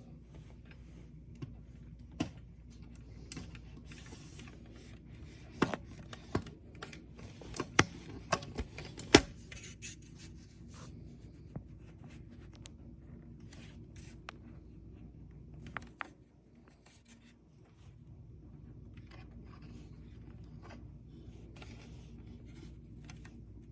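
Hands handling a plastic toy figure and its packaging: scattered sharp clicks and scrapes, the loudest clustered between about five and nine seconds in, over a steady low hum.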